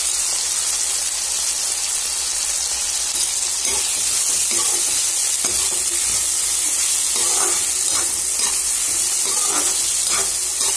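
Onions and tomato pieces sizzling in hot oil in a metal kadai, a steady hiss. From about a third of the way in, a steel ladle scrapes and stirs against the pan in irregular strokes.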